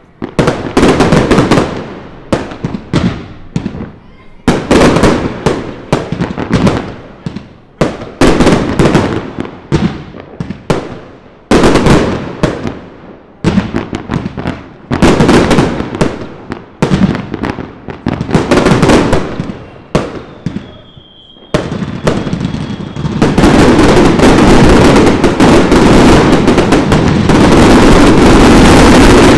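Fireworks going off in rapid volleys of many sharp bangs and crackles, salvo after salvo with short gaps between. A brief whistle sounds about two-thirds of the way in. For the last several seconds the bangs merge into one continuous dense barrage.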